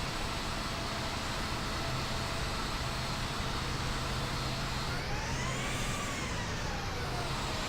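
Steady engine hum of an Airbus A380 airliner, with a whine that rises and then falls in pitch about five seconds in.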